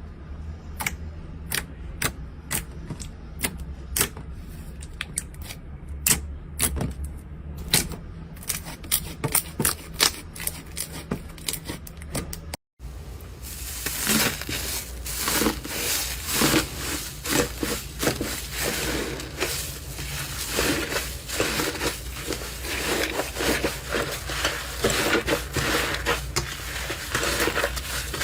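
Slime being worked by hand: sharp clicking pops, sometimes several in quick succession, then after a brief cut, a dense run of crackling and crunching.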